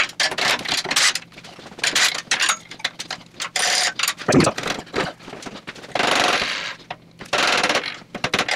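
Metal clicks, clanks and scraping of a steel tube chopper frame being set up in its steel welding jig: parts knocked into place and a steel axle slid through the axle-plate slots, with several scrapes and a heavier knock about four seconds in.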